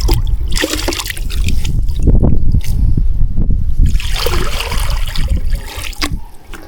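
Water splashing and trickling off a cast net being handled over the side of a boat, in irregular spells with small clicks and knocks.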